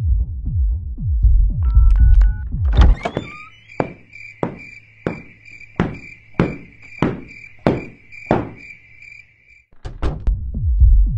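Bass-heavy electronic dance music cuts out after a few quick electronic beeps. A steady high electronic tone follows, under about nine heavy thuds roughly two-thirds of a second apart, and the music comes back near the end.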